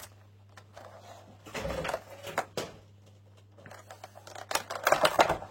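Cardboard and plastic packaging of a Pokémon card box being handled and opened by hand, clicking and rustling in two bursts: one about a second and a half in and another near the end.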